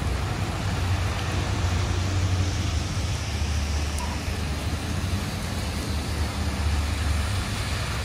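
Street traffic on wet pavement: vehicles passing with tyre hiss on the wet road over a steady low engine hum.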